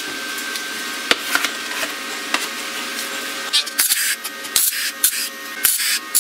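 Wire-feed welder crackling in a string of short bursts from about four seconds in, tack-welding a steel slug onto a galvanized sheet-metal cone. Before that, a steady hum with a single click.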